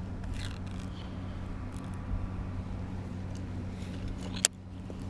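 A steady low motor hum, with one sharp click near the end.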